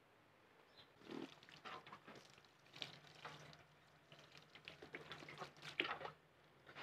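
Faint splashing and trickling of water from a hose rinsing a wet-sanded car bumper, with a hand rubbing the wet paint.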